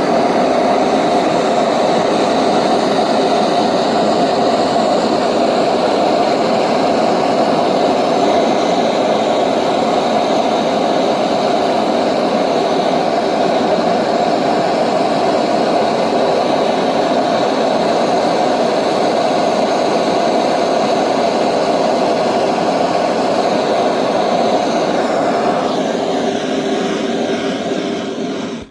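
Gas torch flame burning steadily with a loud rushing hiss while heating steel plate for silver soldering; the sound thins out near the end.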